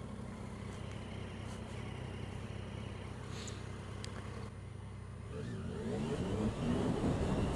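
Motorcycle engine idling at a standstill, then accelerating away about five seconds in, its note rising and growing louder with wind noise building on the helmet microphone.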